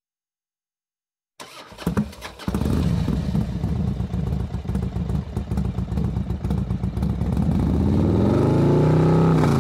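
A motorcycle engine: a few sharp knocks about a second and a half in, then the engine runs with an uneven, pulsing beat. Near the end it revs up and begins to fall back.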